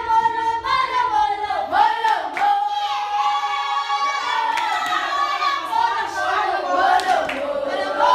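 High voices singing a melody with long held notes and sliding pitch, with a few short claps or clicks mixed in.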